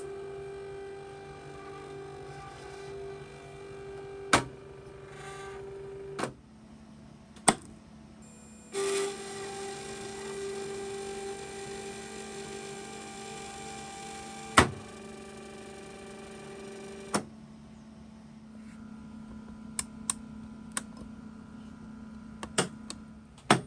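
Small electric motor of a motorised Hornby Dublo indexing turntable running with a steady tone in two spells of several seconds, broken by loud sharp clicks as the solenoid-operated latching mechanism works and the drive stops. A low steady hum runs underneath, and a few lighter clicks come near the end as the control panel knob is worked.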